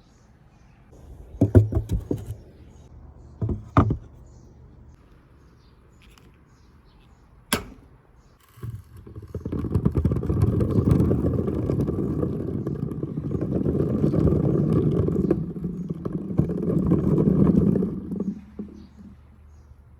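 Marble run: a few sharp knocks, then about nine seconds of steady, low rattling as balls roll down the track together, ending sharply near the end.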